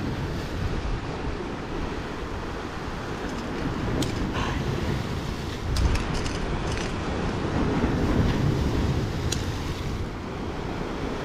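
Wind buffeting the microphone over surf washing against the jetty rocks, with a few light clicks as fishing pliers work the lure's hook out of a sea bass's mouth.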